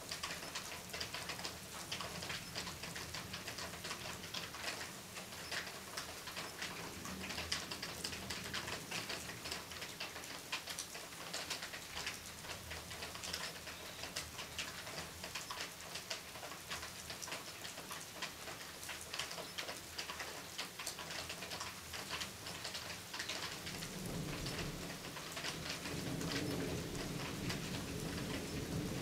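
Rain falling steadily, a dense patter of drops. A low rumble builds over the last few seconds.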